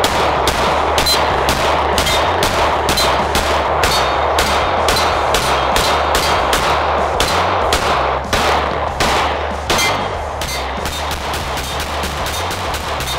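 Beretta APX A1 striker-fired pistol fired in a rapid, steady string of shots, about three a second, with no letup.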